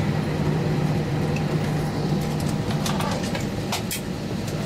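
Steady low hum inside the cabin of an Airbus A320 taxiing in to the gate, from its engines at idle and the cabin air. A few sharp clicks come in the second half.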